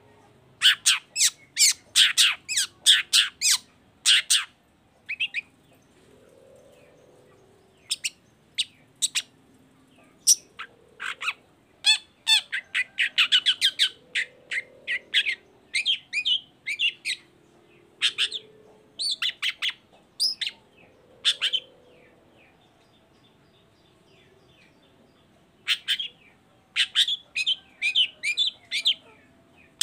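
Long-tailed shrike (cendet) singing: rapid runs of short, sharp chattering notes in bursts, separated by pauses and single scattered notes.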